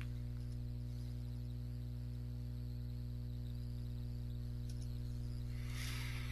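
Steady low electrical hum with a faint hiss underneath: the background noise of the recording between spoken lines.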